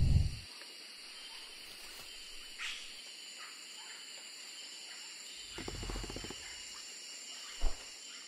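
Wild-animal sound-effect ambience: a steady high-pitched hiss or buzz throughout, with a low animal-like growl at the start, a longer one about six seconds in, and a short low thump near the end.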